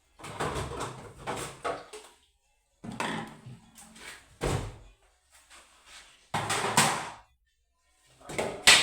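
Household items being handled and set down while a refrigerator is emptied: four bouts of clatter and knocking, the sharpest knock near the end.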